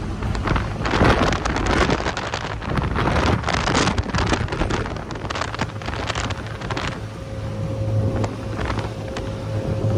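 Speedboat running at speed: a steady engine drone under heavy wind buffeting on the microphone, with the gusts strongest in the first half.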